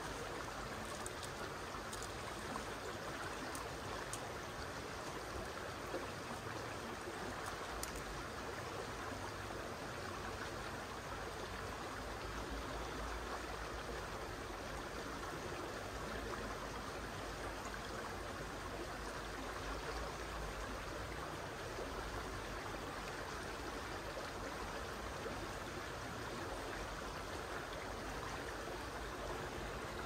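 Shallow mountain river flowing over a gravel bed: a steady rush of running water.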